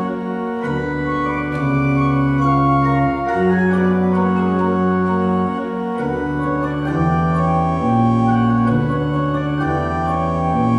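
Pipe organ playing sustained chords over a deep bass line that moves to a new note every second or two.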